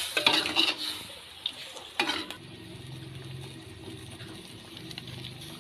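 Metal utensils clinking and scraping against dishes: a quick cluster of clatters in the first second and one more about two seconds in, then a faint steady low hum.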